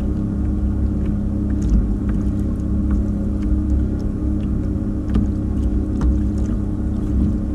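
Small DIY electric underwater thruster on a kayak running steadily at half power: an even hum with two held tones over a low rumble.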